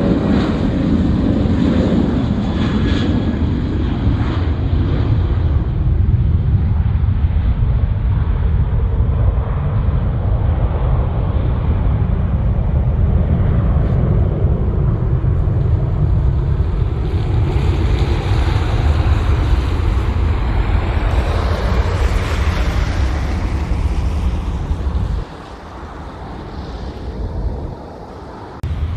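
Jet airliner noise: a broad rushing roar that builds to a peak about two-thirds of the way through, over a steady heavy low rumble. The low rumble drops away briefly twice near the end.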